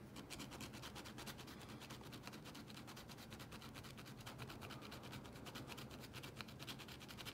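Faint, rapid scratching as leather is scraped off the hard plastic shell of an iPhone leather case, many quick strokes a second.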